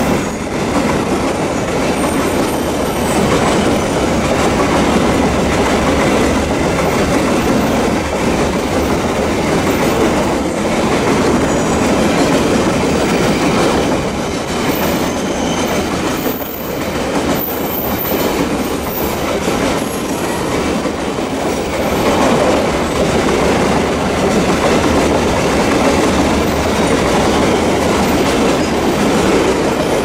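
Open hopper wagons of a long coal freight train rolling past on a curve, making a steady rumble and the clatter of wheels over the rails. Short high wheel squeals come now and then around the middle.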